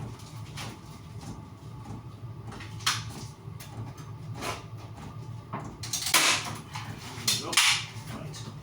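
Scrapes and knocks of roofing felt being handled and pressed into place, with a few louder scraping strokes a little past halfway, over a steady low hum.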